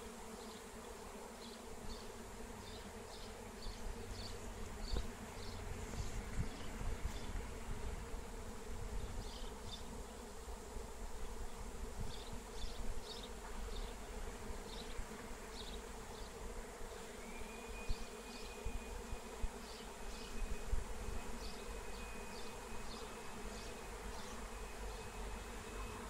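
Honey bee swarm in flight: the steady buzz of thousands of bees in the air at once.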